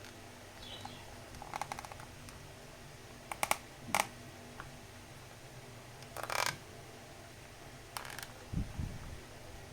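Hands handling a boxed figure and its plastic packaging: scattered sharp plastic clicks and taps, a brief crinkly rustle about six seconds in, and a couple of soft low thumps near the end.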